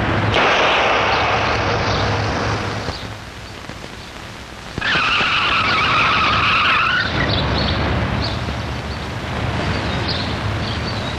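A car's engine running, with a loud tyre squeal lasting about two seconds starting about five seconds in.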